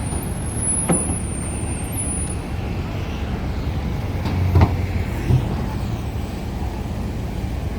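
Engines running with a steady low rumble, broken by a few short knocks about a second in and again near the middle.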